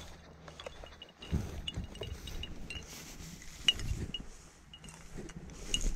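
Wind and handling rumble on the camera microphone, with scattered short, high calls from birds over the flooded field.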